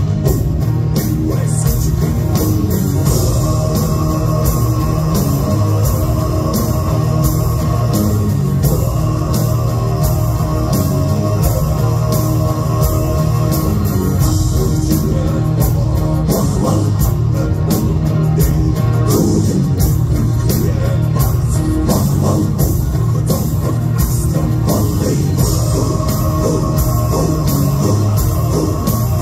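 A Mongolian folk-metal band playing live and loud, heard from the audience: a steady heavy drum beat, electric guitars and bass, a bowed horsehead fiddle, and deep chanted vocals.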